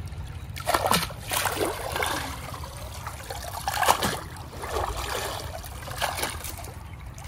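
A cast net being swished and lifted in shallow muddy water, water splashing and trickling from the mesh in several irregular sloshes, the loudest about four seconds in.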